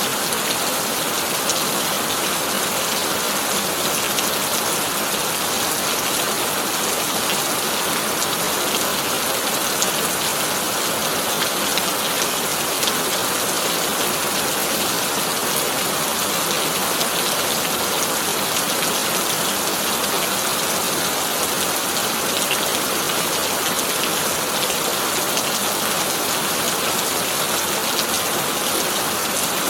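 Heavy rain falling steadily on a corrugated tin roof, an even dense hiss with the odd sharper drop, no thunder.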